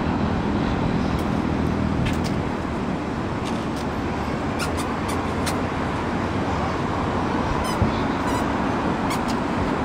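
Steady traffic-like outdoor din with a few faint sharp cracks from a distant aerial fireworks display.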